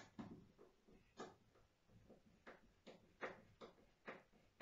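Faint, irregular clicks and short scrapes, about two a second, from hand work with a clamp on a wooden batten.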